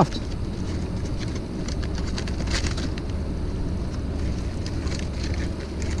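Light crinkling and rustling of a paper towel and aluminium foil being handled around a baked potato, over a steady rushing outdoor noise with a low rumble.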